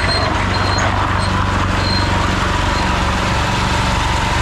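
Small motorcycle engine running steadily at an even speed, with rushing noise as it rides.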